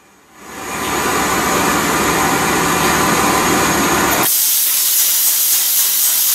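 Marine diesel engine in a training engine room being started: a loud hissing rush of air sets in about half a second in. About four seconds in its deeper part cuts off suddenly, leaving a high hiss.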